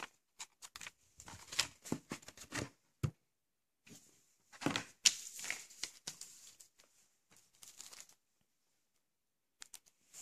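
A sheet of paper being handled, rustling and crinkling in irregular bursts with two busy spells, then a few light clicks near the end.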